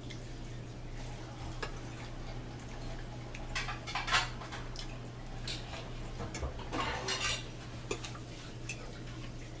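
A fork clicking and scraping against a plate while eating: scattered light taps, with two longer scrapes about four and seven seconds in, over a steady low hum.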